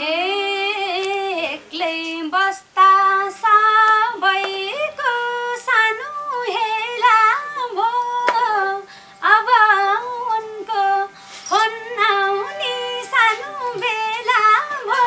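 A woman singing a solo verse of a Nepali dohori folk song, a melody full of pitch slides and ornaments. The band mostly drops out under her, leaving a faint steady low note.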